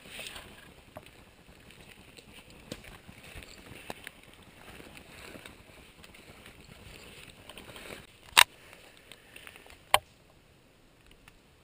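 Rustling of needles, twigs and leaf litter as chanterelle mushrooms are cut and picked by hand with a knife, with small scattered clicks. Two sharp, loud clicks, about eight and ten seconds in, stand out above the rustling.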